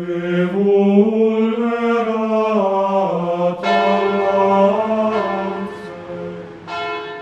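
Solemn intro music of long held, chant-like notes, with a new note coming in sharply about three and a half seconds in and again near the end.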